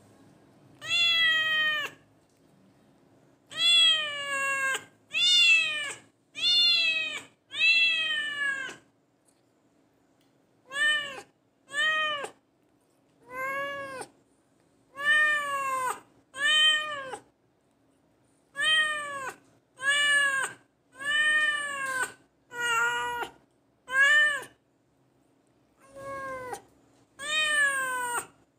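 A cat meowing over and over, about eighteen meows each under a second long, each rising then falling in pitch, with short pauses between them.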